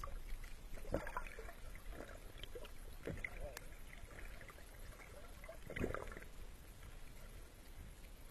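Muffled sea water heard through a camera held underwater: a faint, low wash with a few soft gurgles, the loudest about six seconds in.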